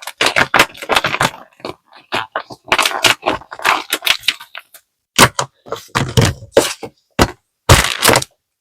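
Handmade paper squishy being squeezed and kneaded in the hands: crinkling, crackling paper in irregular bursts, stopping near the end.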